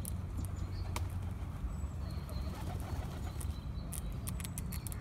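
Eurasian red squirrel gnawing a nut shell: sharp irregular clicks, bunched together about four seconds in, over a steady low rumble, with faint bird calls.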